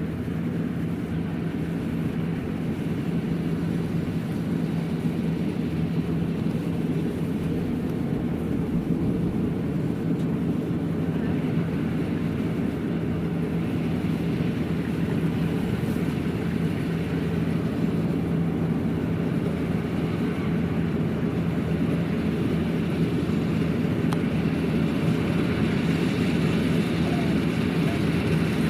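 Kubota DC-93 rice combine harvester running steadily as it harvests, its diesel engine and threshing machinery giving an unbroken drone that grows slightly louder near the end.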